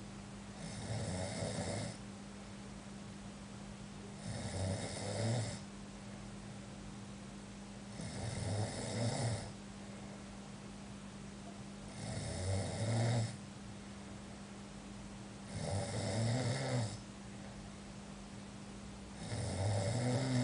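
Slow, regular snoring: six snores, each a little over a second long, coming about every three and a half to four seconds with quiet gaps between.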